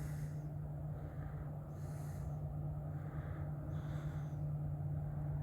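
A person breathing close to the microphone, three breaths about two seconds apart, over a steady low hum.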